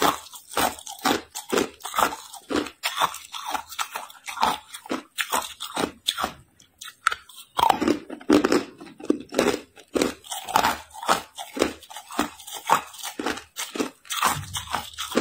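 Hard ice cubes crunched and chewed in the mouth: a quick series of crisp crunches, about two to three a second, with a short pause about six seconds in before the chewing resumes.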